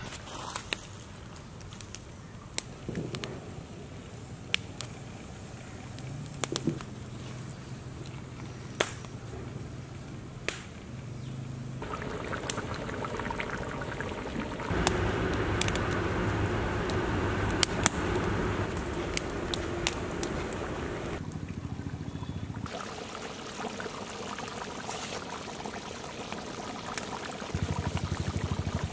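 Open wood fire crackling with sharp pops under a large cooking pot, joined after about twelve seconds by the chicken bubbling hard in its thin gravy over the raised flame.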